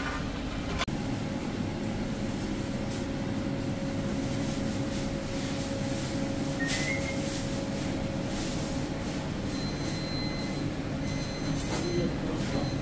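Steady low rumbling hum of kitchen machinery, with a few light clicks and clinks as meat is pulled apart over a metal tray.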